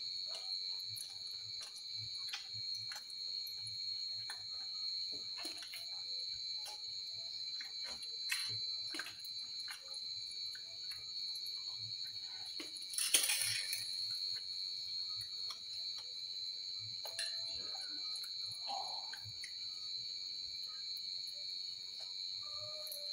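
Quiet eating at a meal from steel dishes: scattered small clicks and clinks of a spoon in a steel bowl of sambar and of fried pakoras being picked from a steel plate, with one louder rustling crunch about halfway through. A steady high-pitched tone runs underneath throughout.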